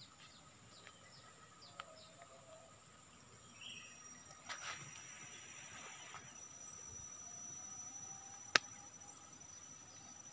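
Faint forest-creek ambience: insects keeping up a steady high whine and birds giving small scattered chirps, with a brief rustle a little before the middle and one sharp click near the end.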